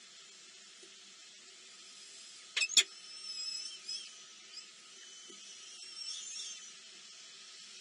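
Two sharp knocks in quick succession about two and a half seconds in, then high, thin, wavering bird chirps at a nest, over a faint steady hiss.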